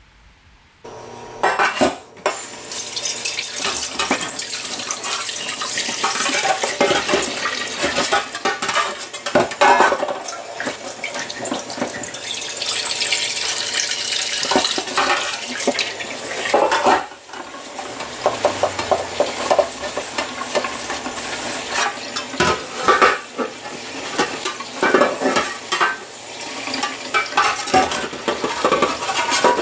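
Tap water running and splashing into a Yamada carbon steel wok in a stainless steel sink, with the wok knocking and clattering against the sink, then a sponge scrubbing the soapy wok near the end. The sound starts suddenly about a second and a half in.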